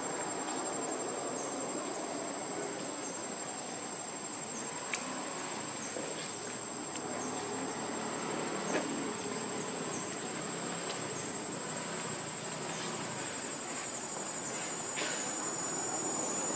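Steady high-pitched chorus of insects: a continuous thin whine, with a few faint clicks here and there.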